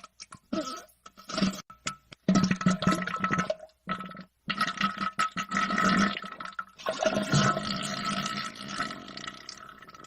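Diarrhea sound effect: a run of wet, sputtering fart noises with short gaps, then, after a brief pause about four seconds in, a long liquid splattering stretch that slowly fades.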